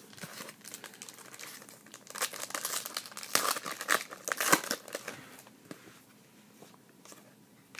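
A trading-card pack wrapper being torn open and crinkled by hand, a dense crackling that is strongest from about two to five seconds in and then dies down to light handling.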